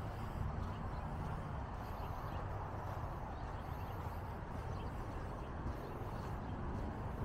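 Steady open-air background noise: a low rumble under an even hiss, with no single event standing out.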